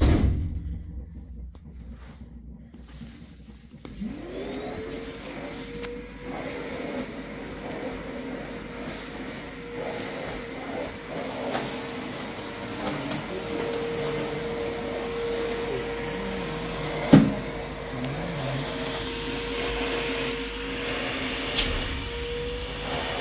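Vacuum cleaner motor starting up about four seconds in, its whine rising to a steady pitch, then running steadily as it sucks over the carpet. There is a thump at the very start and a sharp knock about two-thirds of the way through.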